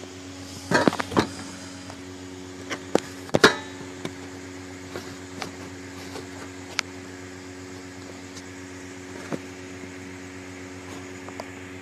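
Scattered knocks and clattering from kitchen items and the phone being handled, several close together in the first second or so and the loudest about three and a half seconds in, over a steady low electrical hum.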